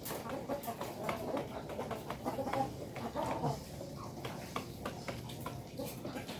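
Village chickens clucking in a coop, with many small sharp clicks scattered among the calls.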